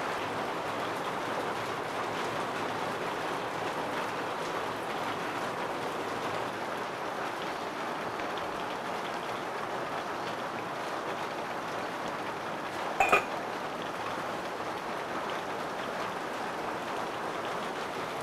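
Heavy rain falling steadily, with a single sharp clink about thirteen seconds in.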